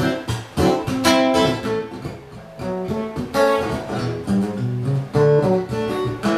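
Solo acoustic guitar playing chords, with sharp strummed strokes and picked bass notes between them.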